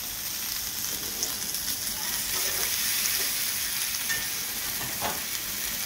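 Pre-boiled lamb sizzling steadily on an electric indoor grill plate, with a faint click about five seconds in.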